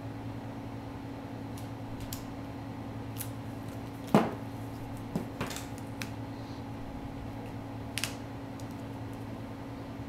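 Knocks and light taps from a roll of duct tape and a taped envelope being handled on a tabletop, the loudest a single sharp knock a little after four seconds, with a few fainter clicks around it, over a steady low hum.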